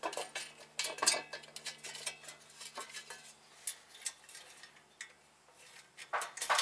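Loose steel parts clinking and knocking by hand: a rear wheel spindle, its dust cover and mounting nuts being fitted onto the axle. Irregular light metallic clicks, loudest about a second in and again near the end.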